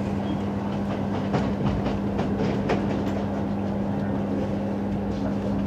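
Class 312 electric multiple unit running at speed, heard from inside the carriage: a steady hum and rolling noise, with a run of sharp clicks from the wheels over rail joints about a second in.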